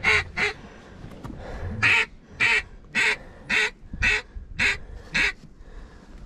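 A duck call blown as a run of mallard quacks to bring in incoming ducks: two quick quacks at the start, then after a pause seven evenly spaced quacks about two a second.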